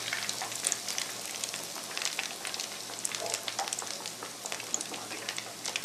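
Coated chicken pieces deep-frying in hot coconut oil: a steady sizzle with dense crackling and popping, the chicken nearly done.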